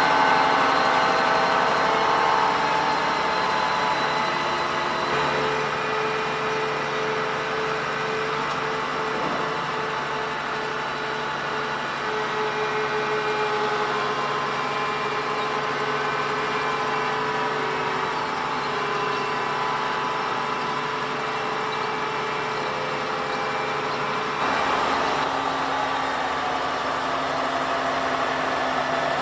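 Heavy farm machinery engine running steadily under load. The sound changes abruptly about five seconds in and again near the end.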